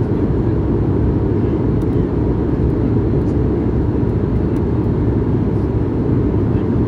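Steady cabin noise inside an Airbus A220-100 in the climb, a deep even rumble of airflow and its Pratt & Whitney PW1500G geared turbofan engines, with a faint steady whine above it.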